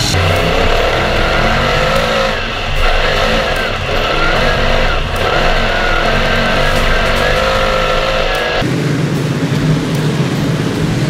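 Dirt modified race car engines at racing speed. The engine note rises and falls with the throttle through the turns, then about three-quarters of the way through changes suddenly to a lower, steadier drone of the cars running on the track.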